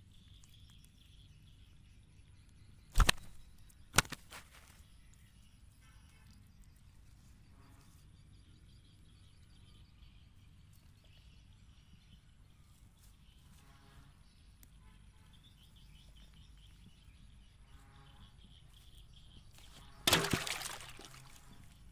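Two sharp slaps about a second apart, a freshly caught giant gourami thrashing against the ground while it is held down to be unhooked, then one longer noisy crash near the end, over faint bird chirps.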